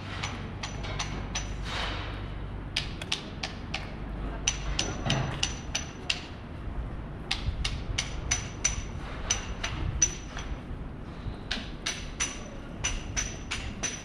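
Rapid sharp metallic tapping, about three or four taps a second, in runs broken by short pauses, over a steady low street rumble.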